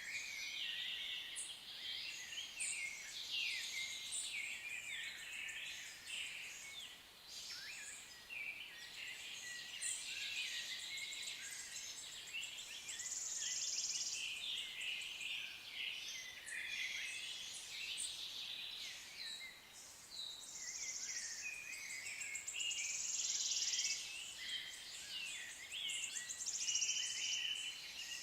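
Several birds singing at once: a dense chorus of overlapping chirps, short whistles and fast trills that carries on without a break.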